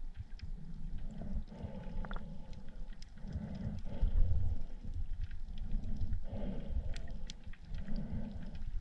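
Underwater ambience picked up by a submerged camera: low rumbling water movement that swells and fades every second or two and is loudest about four seconds in, with scattered sharp clicks.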